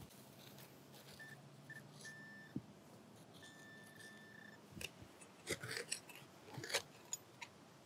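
Handheld pinpointer (Garrett Pro-Pointer AT) beeping faintly: a few short beeps at one pitch, then a longer steady tone as it closes on a buried coin. About five seconds in it gives way to scraping and rustling of soil and dry grass being dug by hand, with several sharp clicks.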